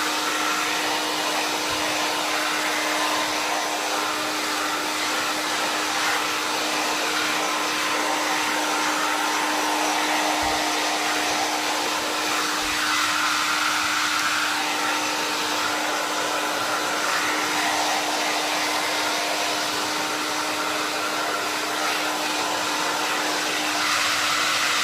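Jinri 1800 W infrared ionic hair dryer blowing steadily with a nozzle attachment clipped on: a constant rush of air over a steady motor hum.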